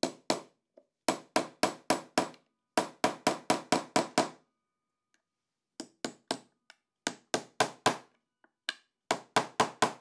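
Claw hammer driving metal T-nuts into an MDF board: quick sharp strikes about three to four a second, in several runs, with a pause of over a second midway.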